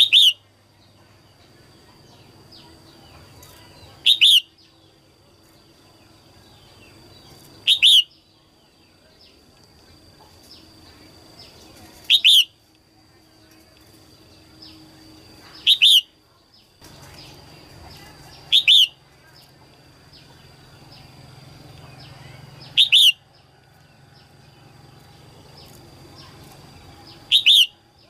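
Female red-whiskered bulbul giving short, sharp calls, eight in all, one every three to four seconds. This is the female call used to stir male bulbuls into singing.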